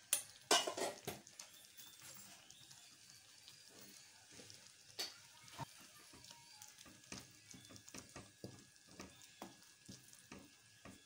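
A wooden spatula stirring a thick, bubbling semolina-and-sugar kesari mixture in a metal kadai. It makes irregular scrapes and taps against the pan over a faint sizzle, with a loud cluster of knocks in the first second.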